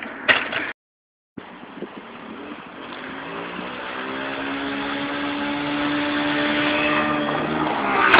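A sharp knock in the first second, then, after a brief cut, a minibike's small engine running at a steady pitch and growing steadily louder as it approaches, loudest near the end.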